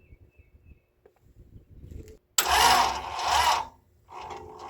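Starter motor cranking a Ford 351 Windsor V8 on an engine stand, coming on suddenly a little over two seconds in and cranking in two loud bursts with a short break between, without the engine catching.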